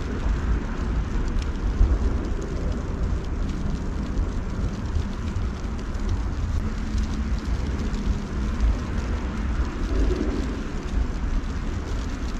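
Outdoor ambience of a snowfall: wind rumbling on the microphone over a steady low hiss.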